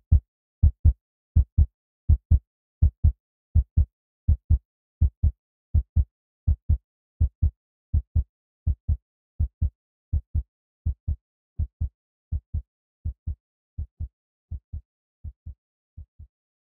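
Heartbeat sound effect: a steady lub-dub double thump, about 80 beats a minute, slowly fading out.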